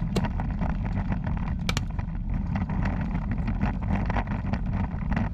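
Tank on the move across dirt ground: a steady low rumble of its engine and running gear, with a few sharp clicks or clanks, two close together about a third of the way in.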